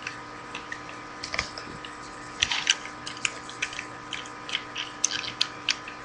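Transformers Deluxe Class Ratchet plastic action figure being handled and transformed: irregular small clicks and snaps as its plastic parts are turned and locked into place.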